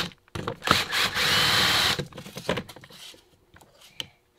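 Cordless drill running in one burst of about a second and a half, unscrewing the plastic gearbox housing of a children's ride-on electric car. Faint clicks and knocks of the parts being handled follow.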